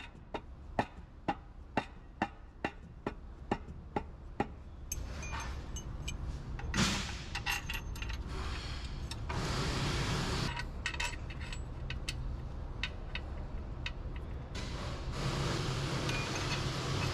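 Dead blow hammer tapping a new EGR cooler into its seat on the exhaust manifold: a steady knock about three times a second that stops about four and a half seconds in. After that, loose metal clinks and scraping as hand tools and mounting bolts are handled.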